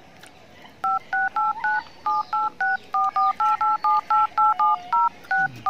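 Mobile phone keypad tones as a number is dialed: a quick run of about eighteen short two-note beeps, some four a second, one per key press.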